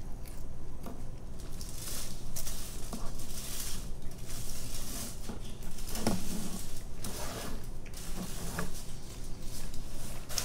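Aluminium foil crinkling and rustling in repeated irregular bursts as it is pulled out from under pizza and chicken wings and pushed aside.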